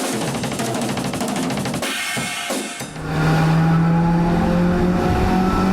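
Brushless motors of a 150-size FPV mini quad spinning up: a rough, buzzing rattle for the first few seconds, then, about three seconds in, a louder steady motor whine that creeps slowly upward in pitch as the throttle is raised.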